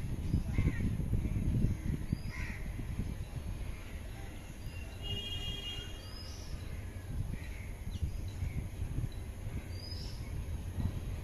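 Crows cawing, short calls every second or two, over a steady low rumble.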